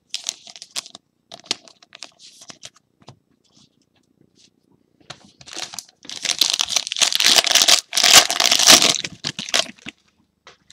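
Foil wrapper of a trading card jumbo pack crinkling and tearing as it is ripped open, loud and dense for about four seconds from about halfway through. Before that, light rustles and clicks of cards being handled.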